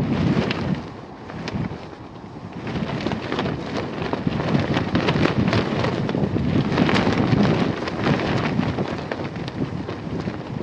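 Strong gusty wind buffeting the microphone, with many sharp crackles through the rush. It eases about a second in, then builds again and stays strong.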